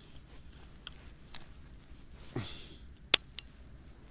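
Handling noise from rigging a fishing rod and reel: a few small clicks, then a sharp click just after three seconds followed by a lighter one. About halfway there is a short falling breath or grunt.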